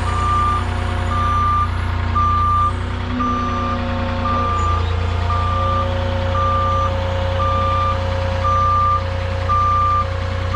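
Forklift's reversing alarm beeping steadily, about once a second, over the forklift's running engine; the engine note rises a little about four and a half seconds in.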